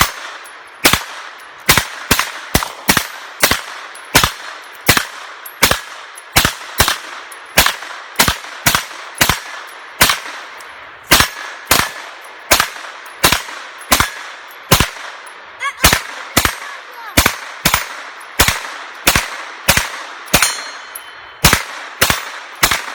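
A long string of rapid gunshots, about two a second with a couple of brief pauses. Each shot is a sharp crack with a short ringing tail.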